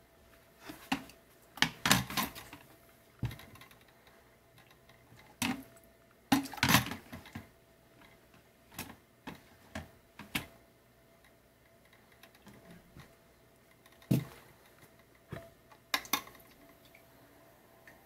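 Hard plastic parts of a Duux ultrasonic humidifier knocking and clicking as they are handled and fitted together. The sound is a series of sharp knocks, some in quick clusters of two or three.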